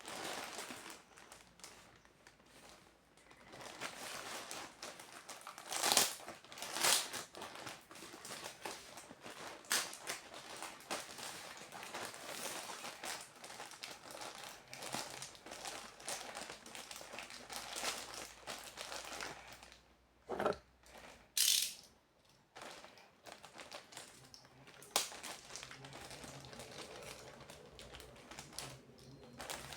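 Plush-toy packaging being handled and opened: steady crinkling and rustling, broken by several louder sharp crackles.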